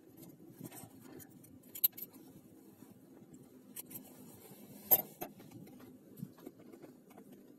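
Quiet handling of fabric at a sewing machine: light rustling and small ticks, with two sharp clicks, about two seconds in and about five seconds in, over a low steady hum.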